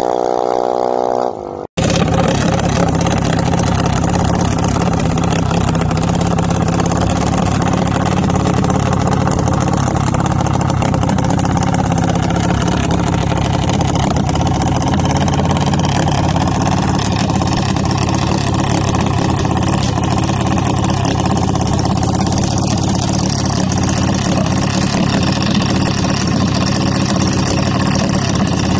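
Junior dragster's small single-cylinder engine idling steadily, with no revving. It takes over after a different steady tone cuts off abruptly about two seconds in.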